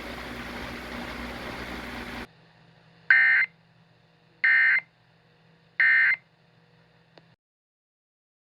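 A steady hiss that cuts off after about two seconds. Then three short, identical bursts of warbling data tones, each about a third of a second long, about a second apart: the Emergency Alert System SAME end-of-message signal closing a high wind warning. A faint click follows near the end.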